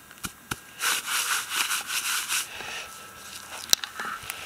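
Footsteps through short grass with rustling and brushing, pulsing a few times a second for about a second and a half, plus a few light clicks and one sharp click near the end.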